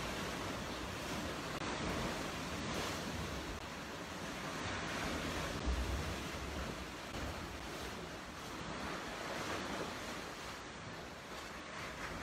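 Sea surf breaking and washing over rocks in a steady rush, with a low rumble of wind on the microphone about halfway through.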